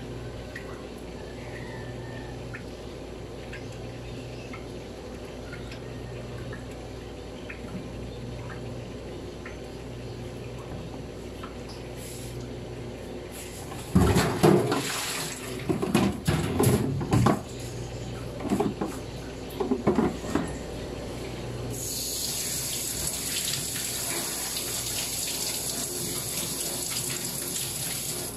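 Running water with splashing: a quiet low hum for about half the time, then several seconds of loud, irregular splashes and knocks, then a steady hiss of water running.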